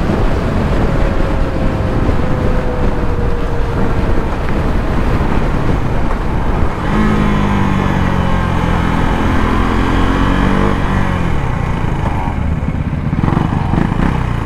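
KTM Duke 390 single-cylinder motorcycle engine, heard from the rider's seat under heavy wind rush, winding down as the bike decelerates from highway speed to a crawl. Its note falls in pitch as it slows and gears down.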